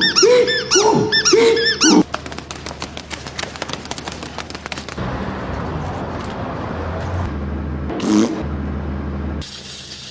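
Windscreen wipers squeaking across glass in repeated arching squeals, then a quick run of fast clicks and a low steady hum.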